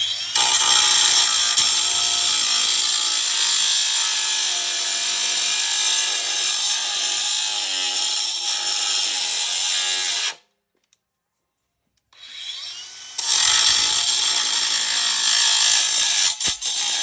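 Ryobi angle grinder cutting into the steel shell of an air-conditioner compressor, a harsh, high grinding. It cuts off about ten seconds in, and after a short silence the grinder spins back up and cuts again, with a sharp knock near the end.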